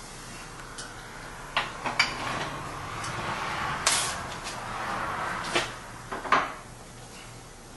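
Five sharp knocks and clacks spread over several seconds, with a steady rushing noise running between the second and the last knock.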